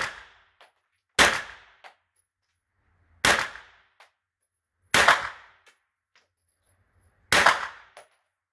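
9mm AR-style pistol-calibre carbine fired slowly in a five-shot group: one shot right at the start and four more at uneven gaps of about one to two and a half seconds. Each is a sharp report with a short echo off the indoor range, followed about half a second later by a faint click.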